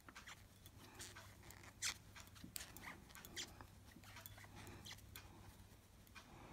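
Faint clicks and light rubbing of knitting needles and wool yarn as purl stitches are worked, with a sharper click about two seconds in.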